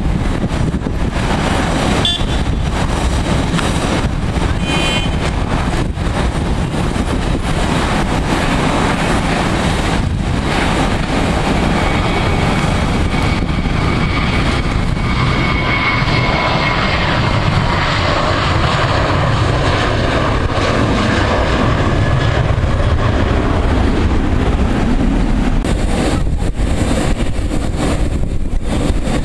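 Airbus A321 jet engines running, a loud steady rumble with a whine that rises and fades in the middle, and wind on the microphone.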